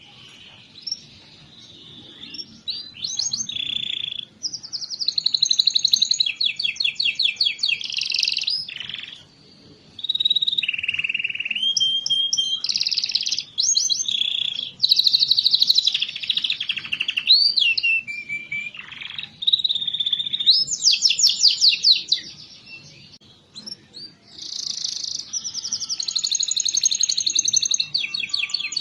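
Domestic canary singing long phrases of fast, high trills and rolls, broken by several short pauses. This is a lure song of the kind played to set silent canaries singing.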